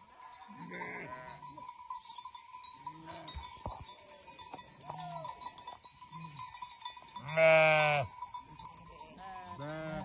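A flock of sheep bleating: scattered short bleats from several animals, and one loud, drawn-out bleat about three quarters of the way through.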